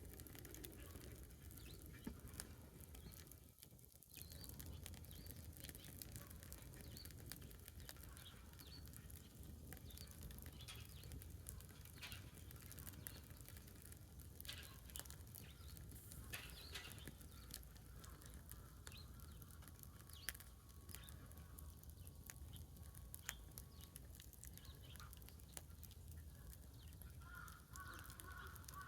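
Faint crackling of a wood bonfire: scattered sharp pops and ticks over a low steady rumble. Near the end a bird calls with a repeated honk-like note.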